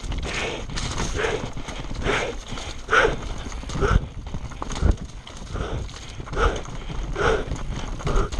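Mountain bike descending rocky singletrack at speed: tyres and frame rattle and thump over rocks, with a steady rumble of wind on the helmet camera. Over it comes the rider's rhythmic heavy breathing, a breath a little under once a second.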